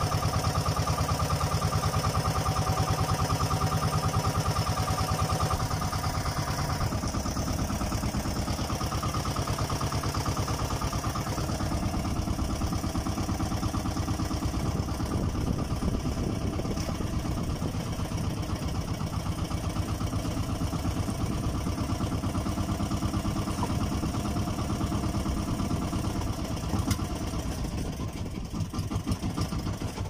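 Motor of an outrigger fishing boat running steadily with a fast, even chugging; about seven seconds in its note drops, and it falls quieter near the end.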